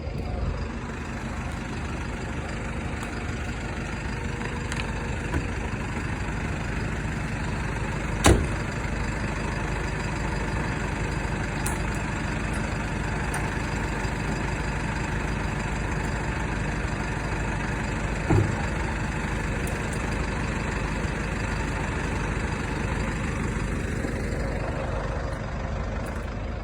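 A hiab crane lorry's engine running steadily at idle, with a sharp knock about eight seconds in and a lighter knock about eighteen seconds in.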